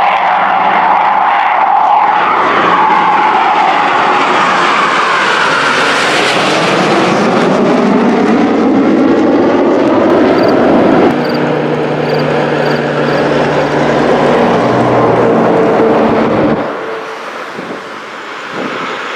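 Three formation jets fly past overhead, their engine roar and whine falling in pitch as they go by. About eleven seconds in, it cuts sharply to the steady hum of a four-engine turboprop transport's engines and propellers, which drops abruptly in level near the end.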